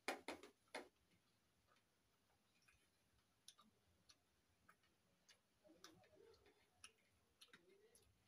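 Quiet sounds of eating rice by hand from a plate: three sharp clicks in the first second, then scattered soft ticks as fingers mix and gather the rice.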